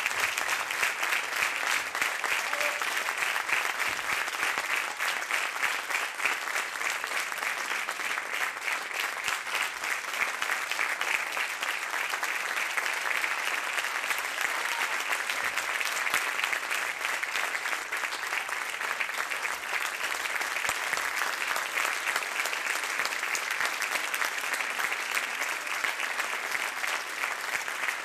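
Theatre audience applauding, many hands clapping steadily without a break.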